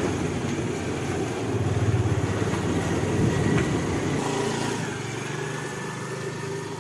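A motor scooter's small engine running slowly close by, settling into a steady low hum from about four seconds in; before that, a rougher, uneven rumble.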